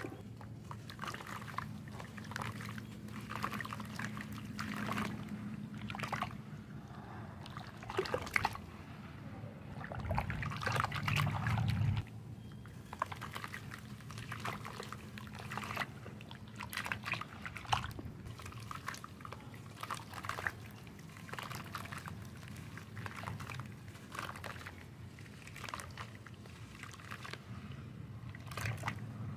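Chunks of soft wet sand crumbling and dropping into water, with many small splashes and trickling, pouring water. There is a louder stretch about ten seconds in.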